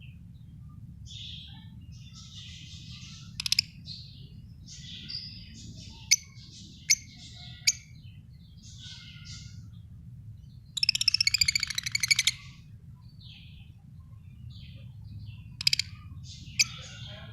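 Lovebirds chirping on and off, with several sharp, piercing single calls and a rapid run of loud chirps about eleven seconds in. A steady low hum runs underneath.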